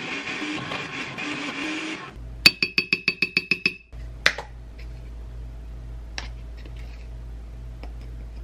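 Countertop blender running on frozen fruit and orange juice, then switched off about two seconds in. After it stops come a quick run of about ten ringing clicks and, later, a few single light clicks.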